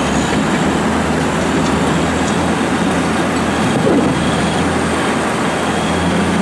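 Caterpillar crawler bulldozer running steadily as it pushes a load of river gravel with its blade: a continuous low diesel engine noise.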